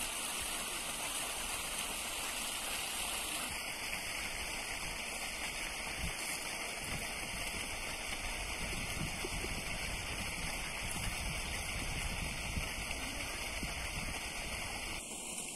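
Steady rushing of flowing water, an even hiss that does not let up.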